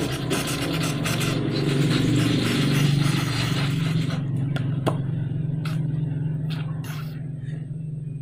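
A motor vehicle engine running with a steady low hum; the wider noise falls away about halfway through, leaving the hum and a few light clicks.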